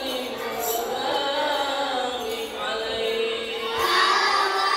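A group of children singing together, with a held note a little past halfway; the singing grows louder about four seconds in.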